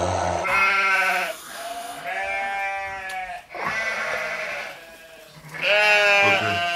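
A man's drawn-out wailing cries without words, four of them about a second each, the last the loudest: a pained reaction to the burn of very spicy noodles.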